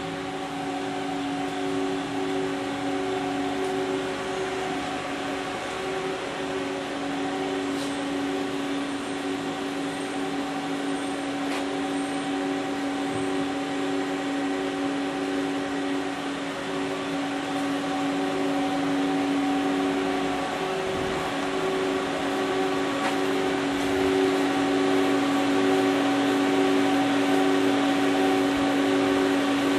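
Mori Seiki ZL-15 CNC lathe running under power, a steady machine hum and whine from its motors, with a couple of faint clicks.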